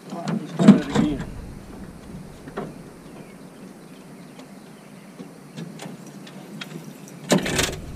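Knocks and scrapes of gear being handled in a jon boat. Scattered small clicks are broken by two louder bursts of rustling and knocking, one about a second in and one near the end.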